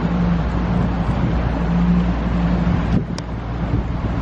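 Canal water taxi's motor running steadily as the boat cruises, a constant low hum, with wind rushing across the microphone.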